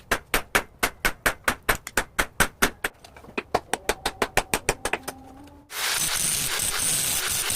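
Rapid, even hammer blows on steel over an anvil, about five a second, as a knife blade is forged by hand. About two-thirds of the way through the blows stop and a power grinder starts abruptly with a steady hiss of steel being ground.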